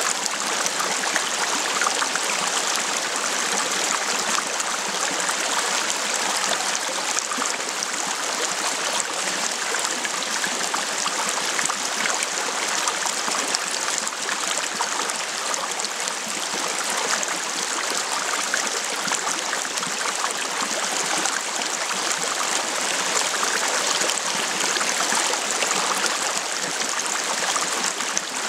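Shallow rocky stream running over stones, a steady, unbroken rush and babble of water.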